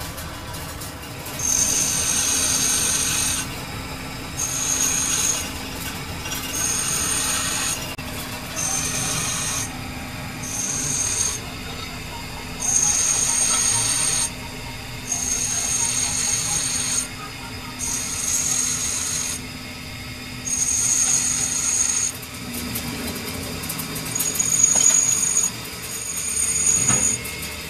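Metal being cut or scraped in repeated strokes, about one every two seconds, each stroke with a high squeal, over the steady hum of a running machine.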